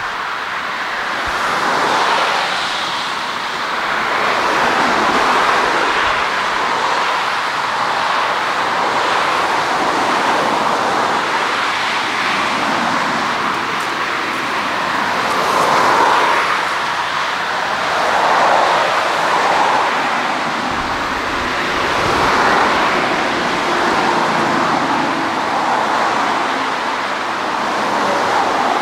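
Jet engine noise from a twin-engine airliner rolling along the runway: a steady rushing sound that swells and eases every few seconds.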